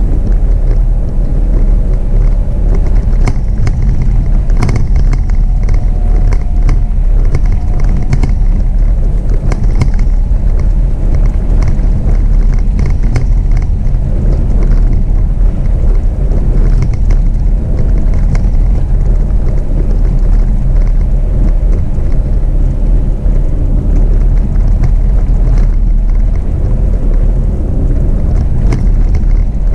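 Jeep Renegade driving along the road: a loud, steady low rumble of tyres and engine, with scattered small knocks.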